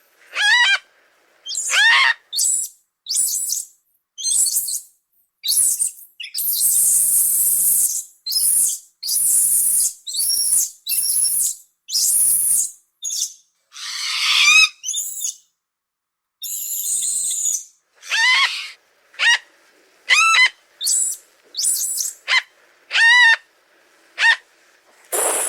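Dinosaur sound effect of a Troodon's chirp: a run of short, high, bird-like chirps and squeals, many sliding down in pitch, broken up by a few longer hissing shrieks.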